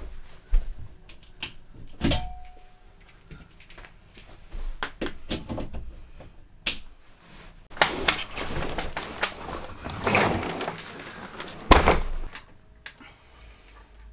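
Irregular clicks, knocks and clatter of objects being handled, with a denser rustling, scraping stretch about eight to eleven seconds in.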